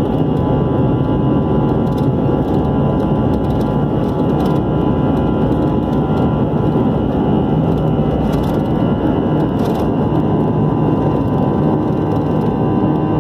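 Cabin noise inside an Airbus A320 during the takeoff roll: the jet engines at takeoff thrust make a loud, steady rush with a low rumble and several steady tones through it, up to rotation near the end.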